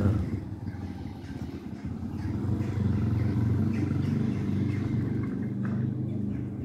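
A motor vehicle's engine running steadily, a low even hum that grows slightly louder about two seconds in.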